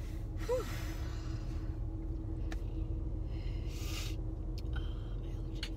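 Steady low rumble of a car's cabin on the move. About half a second in there is a short rising vocal sound, and there are two brief breathy hisses.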